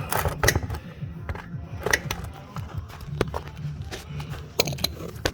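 Scattered sharp clicks and knocks of tools and parts being handled, over quiet background music.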